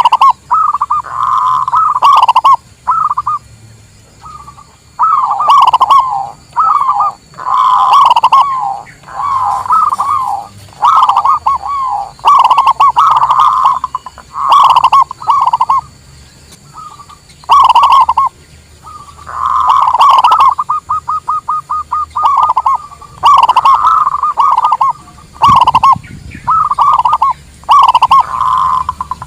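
Zebra doves cooing: repeated short phrases of rapid, warbling coos separated by brief pauses, with a run of quick staccato notes about two-thirds of the way through.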